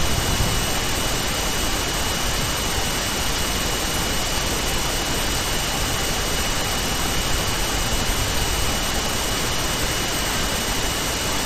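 Steady hiss of recording noise with a faint, thin high whine running through it, even and unchanging.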